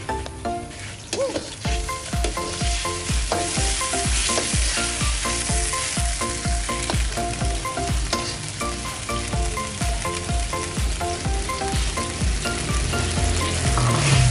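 Sauce bubbling and sizzling in a hot wok as a steel ladle stirs it, flaring louder near the end as squid and prawns go in. Background music with a steady beat plays under it.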